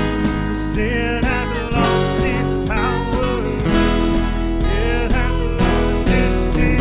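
Worship band performing a song: several voices singing together over acoustic guitar.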